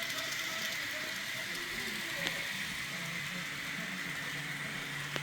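Kato N-scale model diesel locomotives running on the layout's track under DCC: a steady high motor whine with scattered light clicks from the wheels on the rails.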